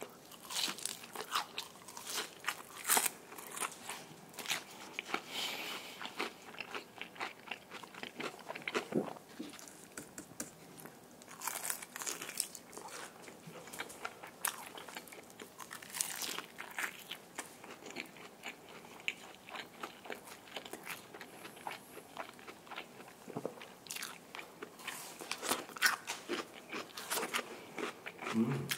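A person biting and chewing crispy fried chicken, close to the microphone: repeated sharp crunches of the battered crust between softer chewing.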